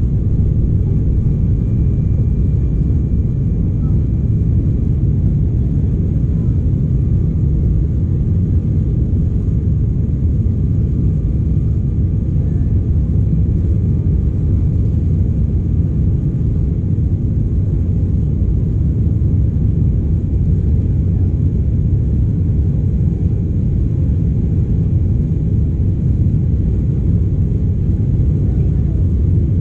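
Cabin noise of an Embraer 195 climbing just after takeoff, heard from a window seat: its GE CF34 turbofans at takeoff power and the rushing air make a steady deep rumble, with faint steady whining tones above it.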